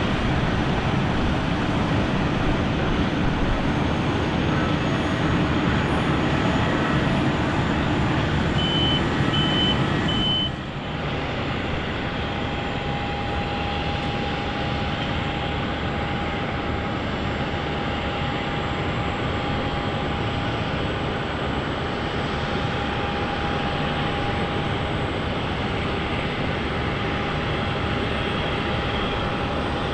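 Jet engines of an Airbus A319 running steadily, heard as a wide rumble. About ten seconds in the sound drops abruptly and changes, and a steady whine runs on from there. Three short high beeps sound just before the change.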